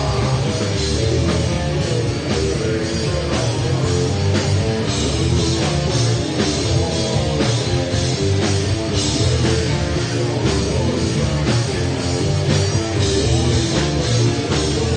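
Heavy metal band playing live: electric guitar and drum kit, with a dense, steady wall of sound and regular cymbal and drum hits.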